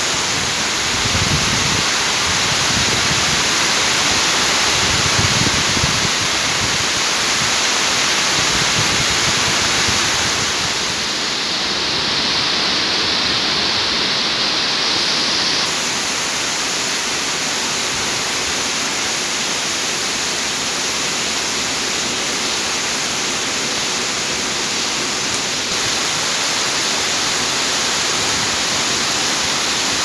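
Steady rain falling on rooftops and streets, a dense, even hiss.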